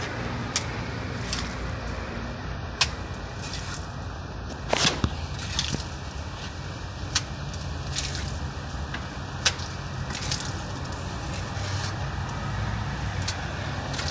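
Steel trowel slapping and flicking cement render onto a concrete block wall and scraping it off the hand board: about a dozen sharp, irregular slaps and scrapes over a steady low background rumble.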